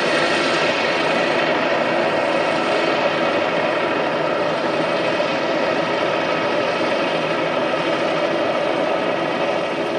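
ADAC rescue helicopter flying low and slow, its engine and rotors making a loud, steady noise with a constant tone running through it.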